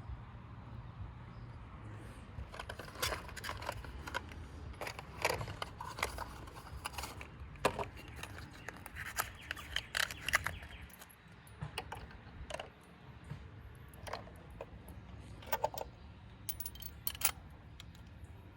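Irregular metal clicks and clinks of a spark plug socket and extension as new spark plugs are hand-threaded into the engine's cylinder head.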